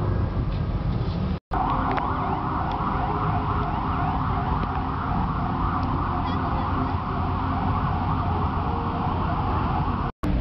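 A rapidly warbling, siren-like tone over a steady low rumble; it cuts in after a brief dropout about a second and a half in and stops at another dropout just before the end.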